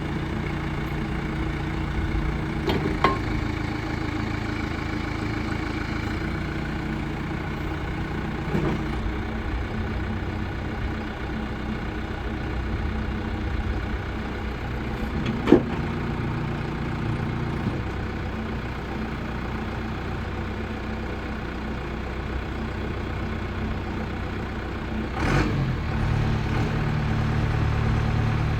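John Deere 310D loader backhoe's four-cylinder diesel engine running steadily, with a few short sharp knocks, the loudest about halfway through. Near the end the engine note deepens and gets louder.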